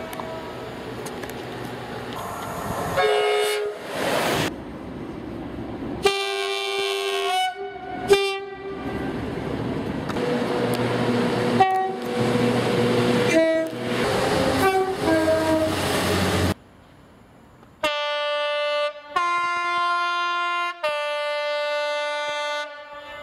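A run of British locomotive and multiple-unit horns, sounded in separate short clips: single and two-note blasts, some changing pitch between notes, several of them over the rumble of a passing train.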